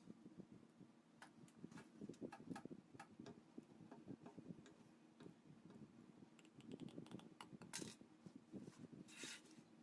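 Faint, irregular small clicks and taps, with two short hissing scrapes near the end.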